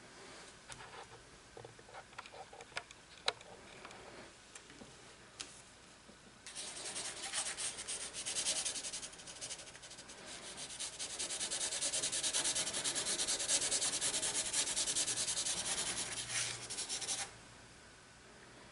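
Light scattered taps on paper, then, about six seconds in, a long spell of rapid back-and-forth rubbing strokes on sketchbook paper, the shading or smudging of a pencil drawing. It stops suddenly near the end.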